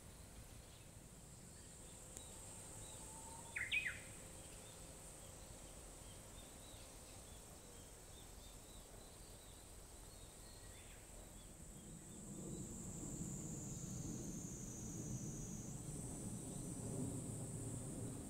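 Outdoor summer ambience: a steady high insect drone with scattered bird chirps, and one louder bird call about four seconds in. About two-thirds of the way through, a low rumbling noise comes in.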